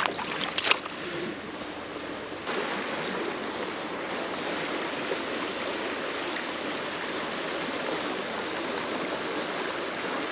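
Creek water running, a steady rushing hiss that steps up a little about two and a half seconds in, with a couple of short sharp sounds in the first second.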